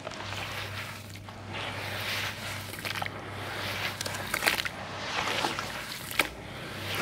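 Hands squeezing and kneading wet sand-cement paste, wet squishing with gritty crackles in repeated strokes about once a second, with one sharper crackle a little after six seconds.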